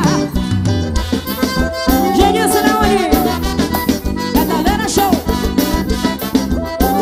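Forró band music: an accordion plays the melody over bass and a steady drum beat.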